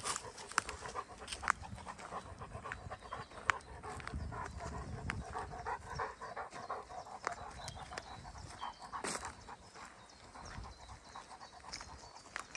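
A dog panting steadily while walking, with scattered crunching footsteps on a dry, leaf-covered path.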